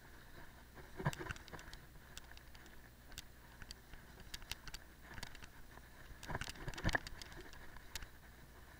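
Cyclocross bike rattling over a rough grass and dirt track: scattered clicks and knocks from the bike, with bursts of clattering about a second in and again between six and seven seconds.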